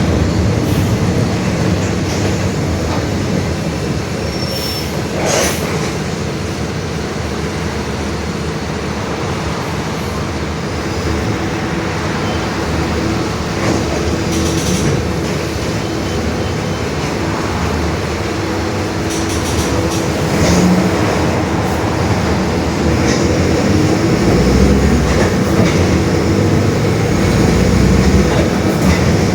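Mercedes-Benz OF-1721 Bluetec 5 city bus under way, heard on board: the diesel engine and drivetrain run steadily with road noise, and the differential growls, a steady drone that marks a worn differential. Short clicks and rattles come now and then, and the low rumble grows stronger near the end.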